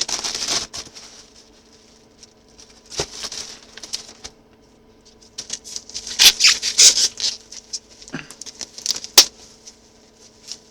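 Packaging rustling and crinkling in irregular bursts as a small boxed item is unwrapped by hand, loudest in the second half with a sharp crackle near the end.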